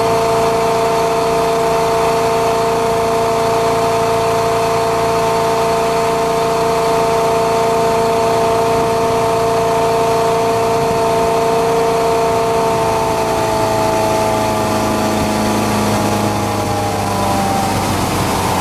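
The 1973 Caravelle fishing boat's engine running under way, a steady hum with a constant rush beneath it. About two-thirds of the way through, its pitch slides down.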